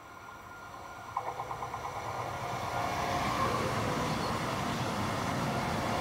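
Electric multiple-unit passenger train approaching and passing close by on the rails. Its rolling noise swells to its loudest about three seconds in and stays there, with a quick run of clicks about a second in.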